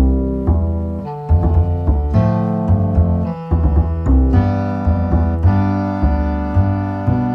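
Background music: a piano playing a melody with bass notes, struck in a steady rhythm of changing chords.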